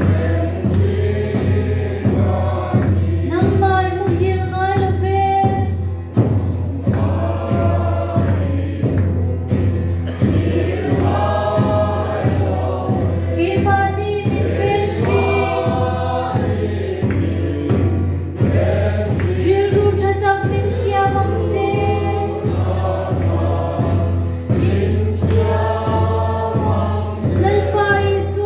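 Congregation singing a hymn together, with a steady beat underneath.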